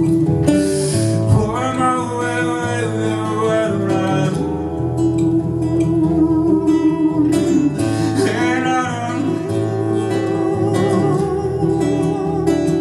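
Music: acoustic guitar with a voice singing wordless sliding and wavering tones over it.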